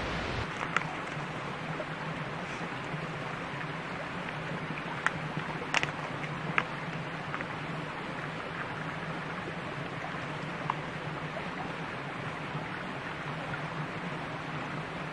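A small shallow creek flowing steadily, with a few sharp light clicks around the middle.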